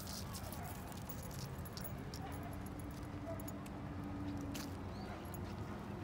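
A small dog's leash clip and tags jingling lightly now and then as it walks, over a steady low outdoor rumble. A faint steady hum runs for a couple of seconds midway.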